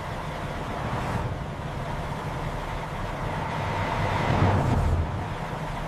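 Heavy machinery engine running with a steady low rumble, swelling louder about four seconds in and then settling back.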